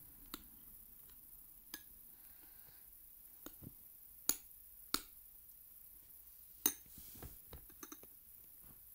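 Metal spoon clinking against a ceramic bowl while stirring thick fluffy slime: a dozen or so sharp, separate clicks at uneven intervals, the loudest about two-thirds of the way in, with a quick cluster of smaller ones near the end.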